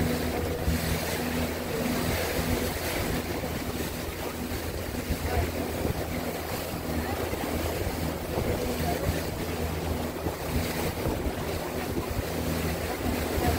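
A motorboat under way: its engine hums steadily under a constant rush of wind on the microphone and water along the hull.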